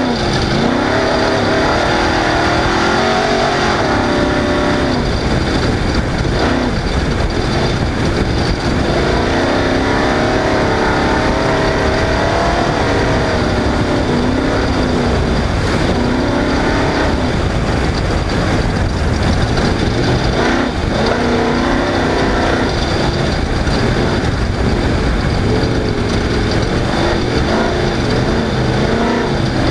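Off-road race vehicle driven hard, its engine revving up and falling back again and again over a constant heavy low rumble.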